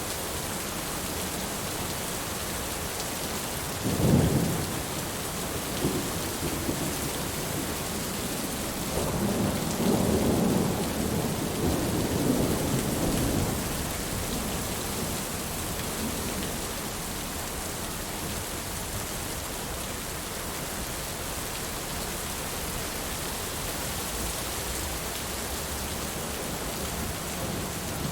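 Heavy steady rain with thunder: a short sharp clap about four seconds in, then a longer rolling rumble lasting several seconds from about nine seconds in.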